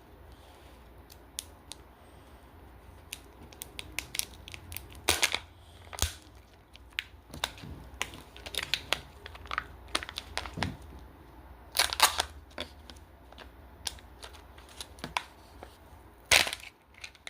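Kinder Joy egg being unwrapped by hand: the foil-and-plastic wrapper crinkling and tearing in short bursts, with scattered clicks of the plastic egg being handled. The loudest crackles come about five seconds in, about twelve seconds in and near the end.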